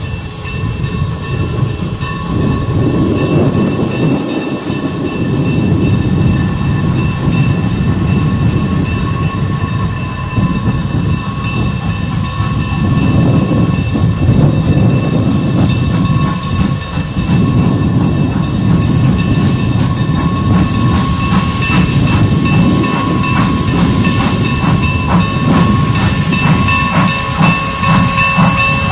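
Steam locomotive working a passenger train, its exhaust chuffing over a dense rumble and growing louder as it approaches, with the beats turning distinct near the end. A few steady high tones ring over it.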